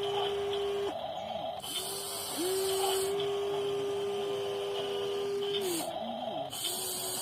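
WLtoys 16800 RC metal excavator's electric motors whining at a steady pitch as it works, cutting off and starting again several times as the controls are moved.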